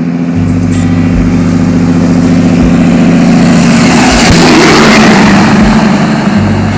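Long-hood conventional semi truck driving past, its diesel engine note and road noise building to the loudest point as it goes by about four seconds in, then easing off as it pulls away.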